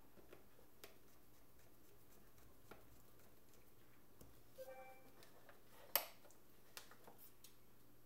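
Small screwdriver at work on the rear frame of a Samsung Galaxy S3 Neo: faint scattered ticks and clicks, a brief squeak about halfway through, and one sharp, louder click about six seconds in.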